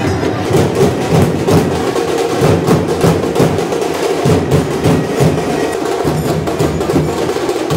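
Drums beaten in quick, uneven strokes over a loud, dense crowd din.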